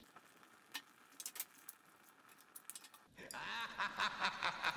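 A fire of paper and charcoal crackling faintly with scattered sharp pops. About three seconds in, a loud, high-pitched, rhythmic laugh starts, pulsing about four times a second.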